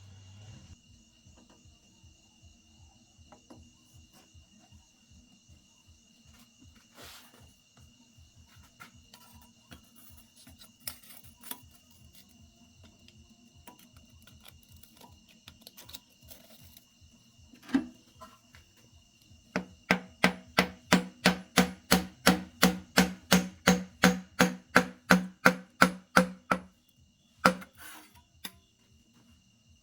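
Quick, even hammering, about three to four blows a second for some seven seconds, each blow with a short ringing tone. Before and after it come a few single knocks and faint ticking.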